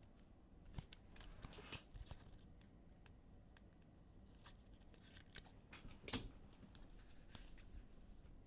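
Faint handling of trading cards: light rustles and scattered clicks, with a sharper click about six seconds in.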